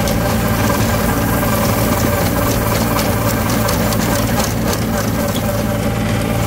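Swaraj Target 630 compact tractor's three-cylinder diesel engine running steadily while driving a 4-foot rotavator through wheat stubble, with faint scattered ticks over the engine's even drone.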